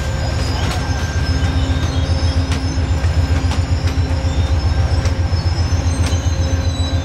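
Amtrak Amfleet passenger cars rolling past at speed: a heavy, pulsing low rumble with wheels clicking over rail joints and a thin, high steady squeal from the wheels on the rail.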